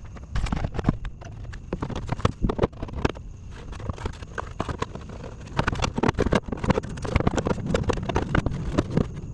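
Hand tools clicking and knocking against metal in a quick, irregular patter, busier in the second half, as the radiator fan shroud and its bolts are refitted.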